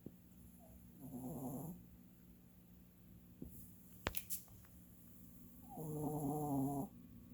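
Old dog snoring: two rattling snores, a short one about a second in and a longer, louder one near the end. A sharp click falls between them.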